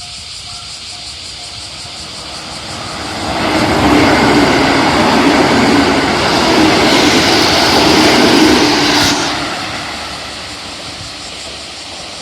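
A JR Central 313 series electric train passes over a level crossing. Its rumble and wheel noise swell about three seconds in, stay loud for about five seconds with a high hiss that cuts off suddenly, then fade away. A level-crossing warning bell dings steadily at first and fades out within the first second or two.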